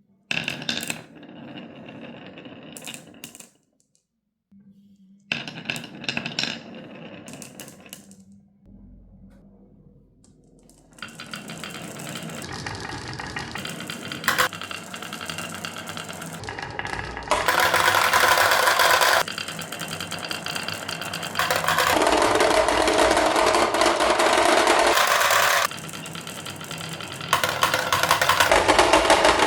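Marbles dropping onto and rolling down a wooden marble run: two sharp clattering drops, each trailing off into rolling, then a continuous rolling rattle that grows louder in several stretches.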